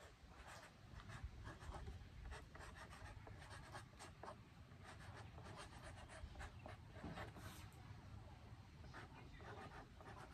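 Sharpie marker writing on a plastic gallon water jug: a faint run of short, quick strokes that stop and start.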